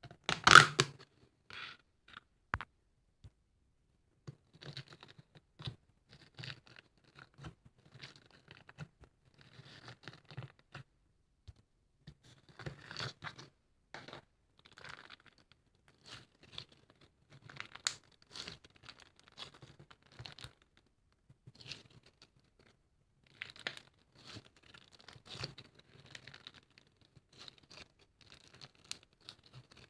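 Irregular handling noises: short scratching, scraping and crinkling sounds coming every second or so, with a louder sharp one about half a second in.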